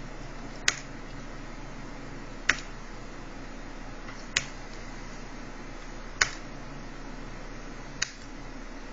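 Five sharp single clicks about two seconds apart, from repeatedly refreshing a web page on a computer, over a steady background hum.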